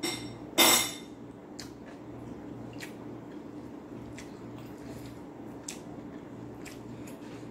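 Tableware sounds while eating from a ceramic bowl: one loud, short clatter about half a second in, then faint scattered clicks of fingers and food against the bowl.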